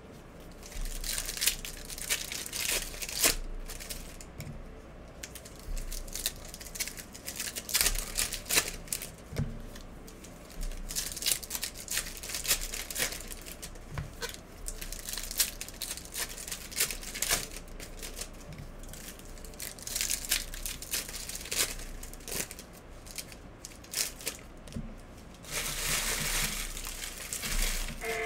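Trading card pack wrappers crinkling and tearing as packs are ripped open and handled, an irregular run of sharp crackles that gets denser near the end.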